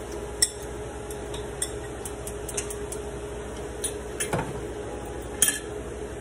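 Kitchen utensils clinking against glass bowls: about six short, sharp clinks scattered through, the loudest near the start and about five and a half seconds in, over a steady hum.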